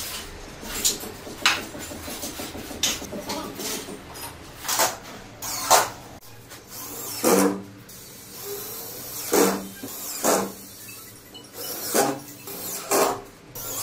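Irregular knocks, scrapes and clatter of metal drywall profiles and gypsum board being handled and fitted to a suspended ceiling frame.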